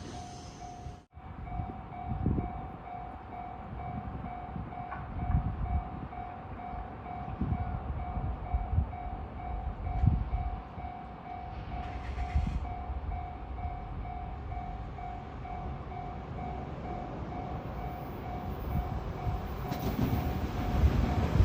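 Japanese railway level-crossing warning bell ringing, a steady repeated electronic ding about twice a second, over irregular low rumbles. Near the end a train's rumble grows as it approaches the crossing.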